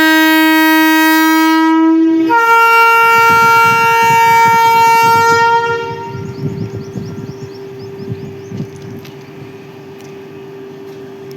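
Horn of a WAG-12B electric freight locomotive: a long, loud low note, then a switch to a higher note that holds for about three more seconds before cutting off. After the horn stops, a much quieter steady hum and rumble remain.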